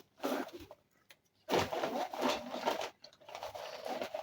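A shopping bag rustling and crinkling in bursts as groceries are taken out of it, the longest stretch starting about a second and a half in.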